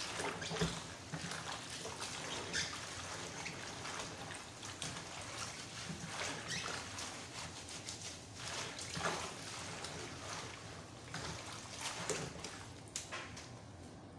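Afang leaves being washed by hand in a bowl of water: irregular sloshing and splashing as the leaves are rubbed and squeezed, dying down near the end.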